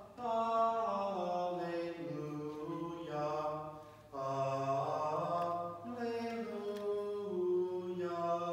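Unaccompanied Byzantine liturgical chant, a communion hymn, sung in slow held notes in phrases of about two seconds with short breaks between them.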